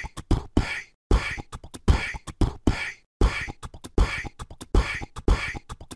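Beatbox-style percussive outro jingle: a quick loop of deep kick-like thumps and sharp snare-like hits, repeating in phrases about a second long with brief silent breaks between them.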